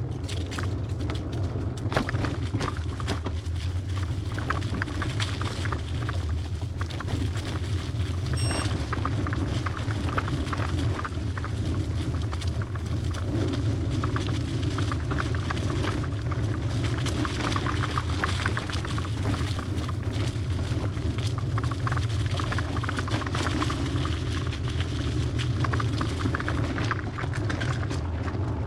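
Hybrid bicycle riding over a bumpy dirt trail: a steady low rumble of wind and tyres on the microphone, with frequent clicks and rattles from the bike over bumps. A brief high squeak sounds once about eight seconds in.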